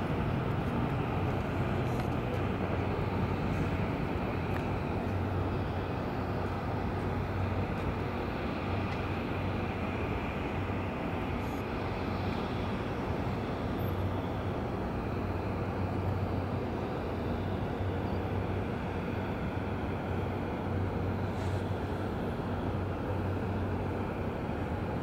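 Steady distant jet engine noise from an airliner taxiing at an airfield: an even rush with a low hum underneath, unchanging throughout.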